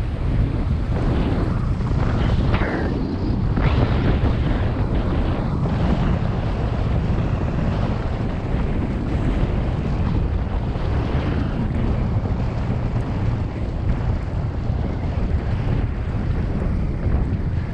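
Wind buffeting the microphone of a camera carried downhill on a ski run, a constant low rumble over the hiss of sliding on packed snow, which scrapes louder a few times in the first four seconds.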